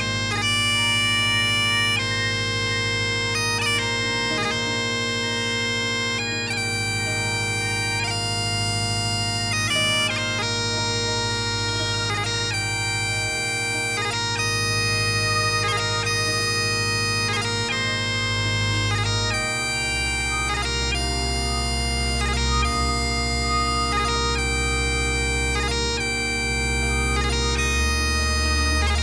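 Bagpipes playing a melody over steady drones in a folk band arrangement; about two-thirds of the way through, a deeper bass note comes in underneath.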